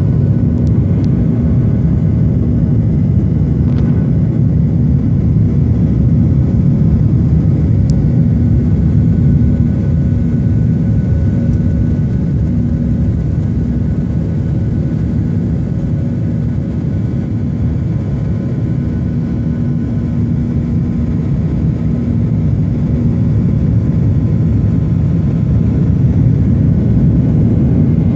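Airliner jet engines running with a steady low rumble and a faint steady hum, at an even level throughout.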